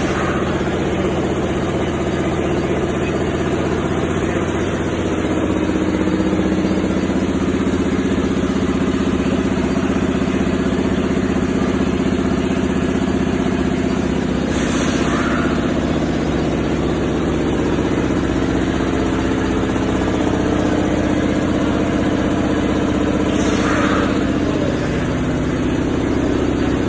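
A large diesel truck engine idles steadily, with three brief falling hisses over it: near the start, about halfway through and near the end.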